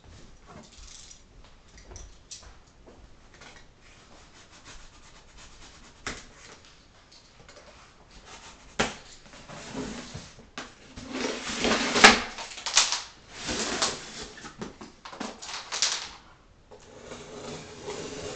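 Plastic packing straps being cut and pulled off a cardboard box: a sharp snap about nine seconds in, then louder scraping and rustling of the straps against the cardboard with a couple of sharp clicks, and more rustling near the end.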